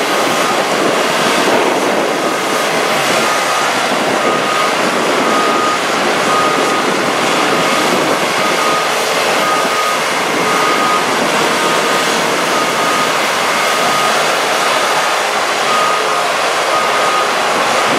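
Heavy construction machinery running steadily, with a vehicle's reversing alarm beeping about once a second.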